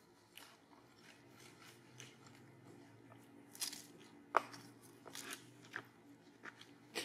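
Macaques feeding on crunchy green fruit: scattered short crunches and crackles of biting, chewing and husks being handled, the sharpest snap a little over four seconds in.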